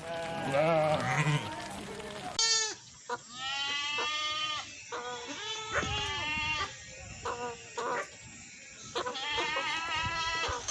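Livestock bleating: a run of wavering, quavering calls, several of them overlapping, with short gaps between them. The recording changes about two seconds in, and the bleats carry on after the change.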